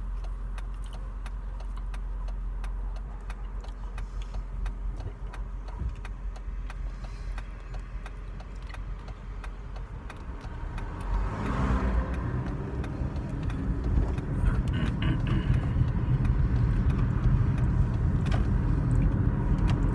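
Road and engine noise of a moving car heard from inside the cabin, a steady low rumble that grows louder about halfway through.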